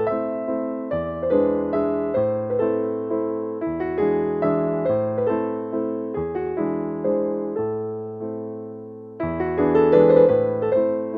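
Background music: electric piano playing a calm tune over a steady bass line, fuller again about nine seconds in.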